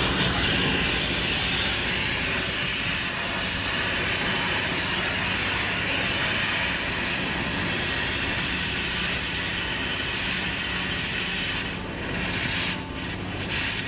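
Oxy-fuel cutting torch running with a steady loud hiss while it heats and cuts galvanized sheet steel. Near the end the hiss dips and turns uneven as the cut starts and sparks fly.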